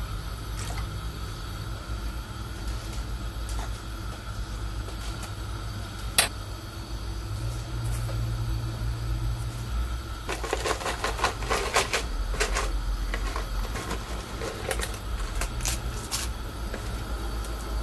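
Small clicks and soft wet taps from eating and handling food, scattered over a steady low hum, with a cluster of clicks about ten to twelve seconds in.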